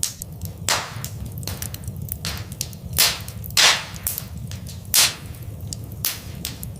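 Fireplace fire crackling: a stream of small pops and snaps over a steady low rumble, with a few louder snaps. The loudest comes about halfway through.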